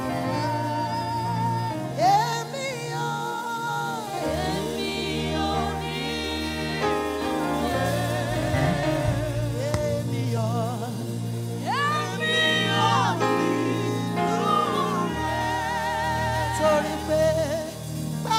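A woman singing gospel into a microphone with vibrato, over live accompaniment with long held low notes.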